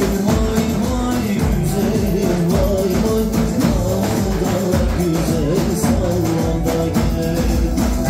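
Loud live dance music: davul bass drums beat a steady rhythm under a sustained melody line.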